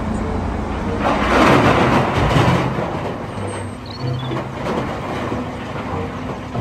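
Heavy diesel engine of a wheel loader running under load as it dumps a bucketful of coal into a dump truck's steel bed. The coal pours in with a loud rush that is strongest from about one to three seconds in, then the engine carries on steadily.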